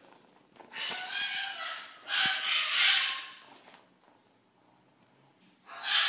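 A kitten mewing: two drawn-out, high-pitched mews in the first four seconds, a short lull, then another mew starting at the very end.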